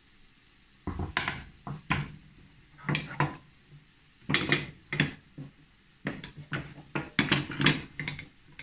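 Metal kitchenware clattering: a run of irregular clinks and knocks of utensils against a pan and dishes, over a faint sizzle of oil deep-frying.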